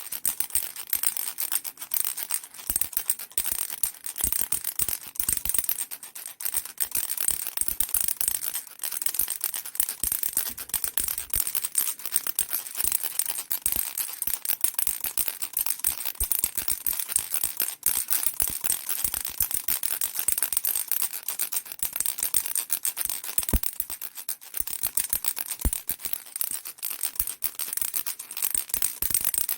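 A baby rattle shaken without pause: a dense, continuous patter of small beads clicking inside a plastic body, bright and high.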